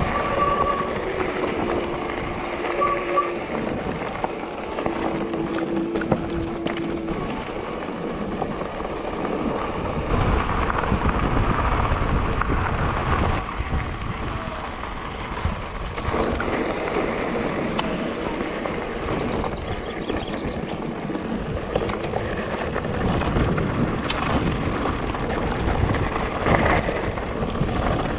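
Wind rushing over the microphone of a camera riding on an electric mountain bike on a rough stony track, with knocks and rattles from the bike as it rolls over rocks. A steady whine sounds twice within the first seven seconds.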